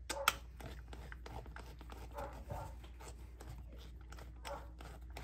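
Faint clicks and light scraping from a hand nut driver turning an 8 mm bolt down, over a low steady hum.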